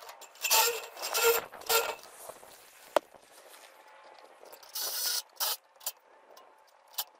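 A few short scrapes and rustles of the flexible metal chimney liner being handled on a brick chimney top, with a sharp click about three seconds in.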